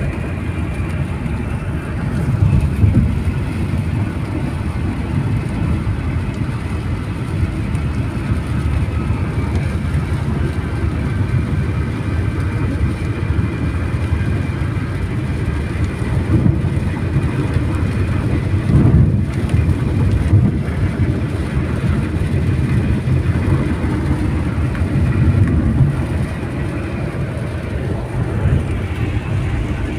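Steady road and tyre noise of a car at highway speed on a wet road, heard from inside the cabin as a constant low rumble.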